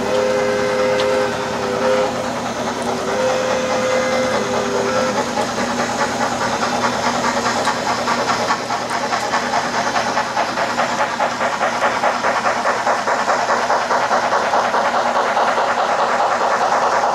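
Sound of a Trix HO-scale New York Central H6 Mikado steam locomotive model: a two-note steam whistle sounds several blasts over the first five seconds, then steady rhythmic chuffing and steam hiss with rail clatter, growing a little louder as the train approaches.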